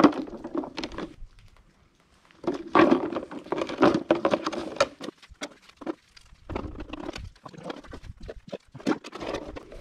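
Bare koshiabura twigs clicking, knocking and rustling against one another and against plastic PET bottles as a bundle of cut branches is pushed into the bottles, in irregular clusters of sharp clicks. A few low grunt-like vocal sounds come with the two busiest stretches, near the start and a few seconds in.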